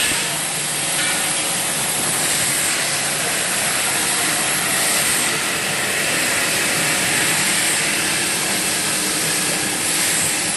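Steady hiss and even mechanical running noise of a 3-in-1 water bottle filling line and its bottle conveyor in operation.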